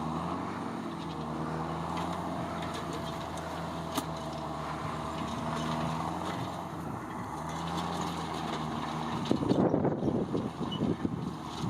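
John Deere 6810 tractor engine running steadily while pulling a three-furrow plough, its note shifting slightly about two-thirds of the way in. Wind buffets the microphone near the end.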